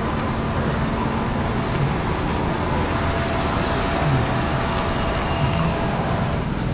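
Busy market street ambience: a steady rumble of nearby motor traffic under general street noise.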